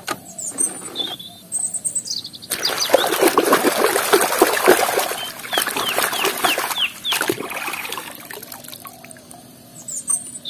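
Water splashing and sloshing as a hand scrubs a plastic toy jet in a tub of muddy water, starting about two and a half seconds in and lasting several seconds. Birds chirp now and then, with a quick run of chirps near the middle.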